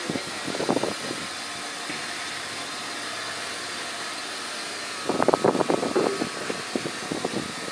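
Liquid nitrogen running from a transfer hose into a cryogenic dewar and boiling off in a steady hiss, with louder irregular bursts about half a second in and again from about five seconds in.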